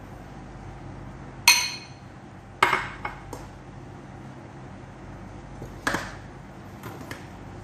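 A spoon clinking and knocking against a stainless steel pot and a glass bowl while fish is served onto rice. A loud, ringing clink about a second and a half in, then several lighter knocks and clinks.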